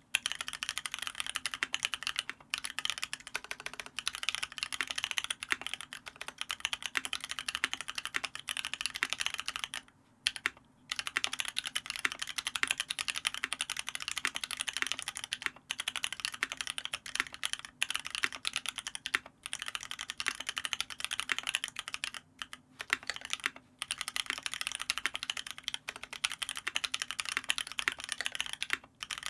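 Fast continuous typing on a custom mechanical keyboard with lubed Paco switches (cream housings, Halo stems) on a brass plate and PBT keycaps, with brief pauses about ten seconds in and again near the middle of the second half.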